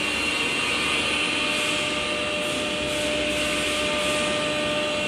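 CNC router running: a steady whine over a constant noisy hiss.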